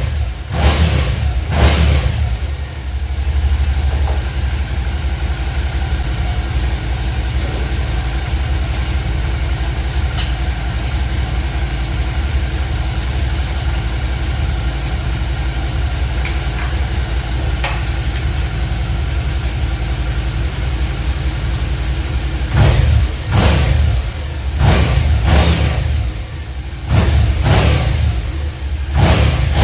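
A vehicle engine idling steadily, blipped in short revs in the first couple of seconds and again repeatedly in the last several seconds.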